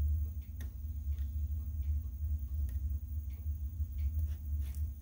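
Faint, irregular small clicks of a soldering iron tip and pliers against the pins of an aviation connector as old wires are desoldered, over a steady low hum.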